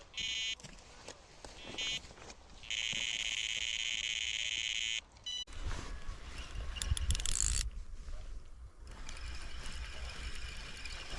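Electronic carp bite alarm sounding a carp bite: two short beeps, then a continuous tone for about two seconds as line is pulled off the rod, a run. After that the alarm stops and rumbling wind and handling noise follow.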